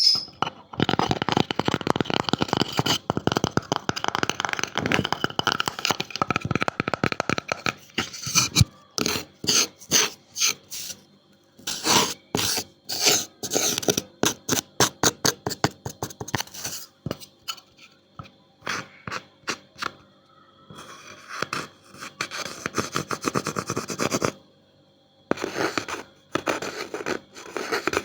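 Close-up scratching and rubbing on wood for about the first eight seconds, then quick, irregular tapping on the wood. Later there is another short stretch of scratching and more taps near the end.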